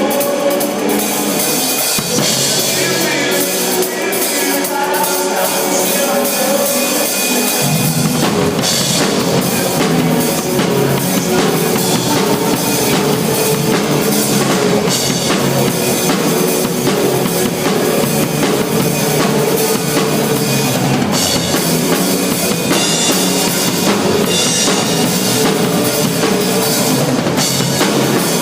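Band music led by a drum kit with a steady bass drum; the low end fills in about eight seconds in and the music gets fuller.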